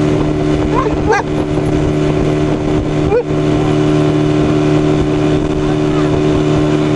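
Small boat's outboard motor running steadily while a Boxer dog lets out short, rising howls, a couple about a second in and another about three seconds in.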